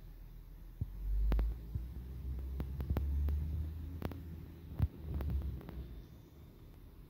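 Deep rumble of a Heil 7000 rear-loader garbage truck working, swelling and fading in several surges, with scattered sharp clicks.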